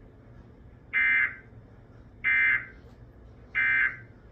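Emergency Alert System end-of-message signal: three short bursts of screechy digital data tone, about a second and a quarter apart, played through a TV speaker.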